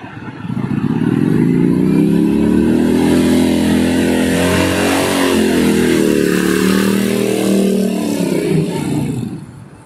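Cruiser motorcycle engine pulling away and accelerating past, its note rising as it gets going, then fading out near the end as it rides off.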